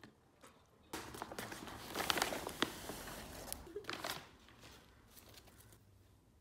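Rustling and crinkling of a mailer envelope as a rolled sweater is pulled out of it. It starts about a second in and lasts about three seconds, with a few faint rustles of fabric after.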